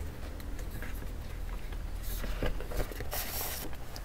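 Stiff printed pages rustling and sliding in a ring binder as they are turned, with light taps of card. The longest rustle comes about three seconds in.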